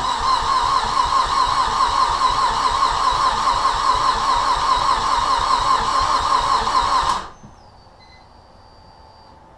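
Starter cranking the freshly built turbocharged 2.3-litre four-cylinder of a Mazdaspeed 3 in an even rhythm for about seven seconds, then stopping abruptly without the engine firing. The gas pedal is held to the floor so it turns over without starting, to build oil pressure before the first real start.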